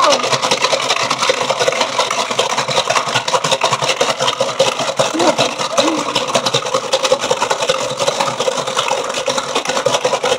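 Cool Maker KumiKreator plastic bracelet-braiding machine being worked continuously, its plastic mechanism giving a steady, rapid clicking whirr as the cord is braided.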